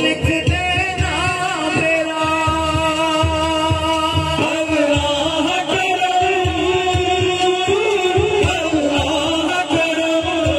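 A man singing a naat, a devotional song in praise of the Prophet, through a public-address system, with long held, wavering notes over a steady low beat.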